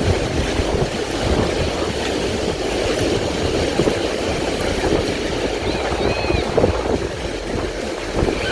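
Ocean surf washing ashore, with wind rumbling on the microphone; a few faint high calls are heard about six seconds in.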